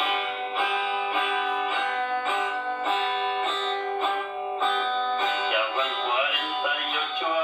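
A song led by plucked guitar notes in a steady, even rhythm, about two a second. A singing voice comes in over the guitar near the end.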